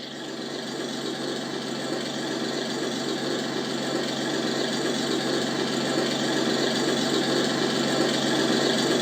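Steady engine-like machine running sound, slowly growing a little louder.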